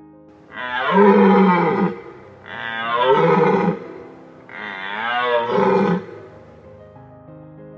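An animal calling: three long, wavering cries of about a second and a half each, evenly spaced.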